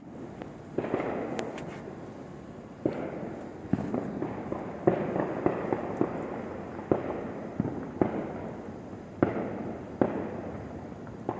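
Fireworks being set off by many neighbours at once: a string of bangs about once a second, each followed by a long echoing roll. There is a short crackle about a second and a half in.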